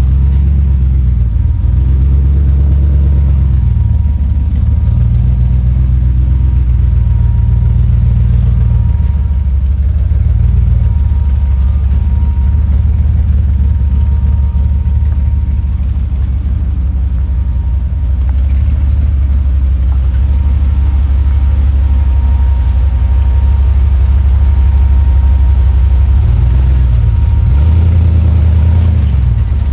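Jeep Comanche pickup's engine running at low speed on a trail, its pitch stepping up and down with the throttle.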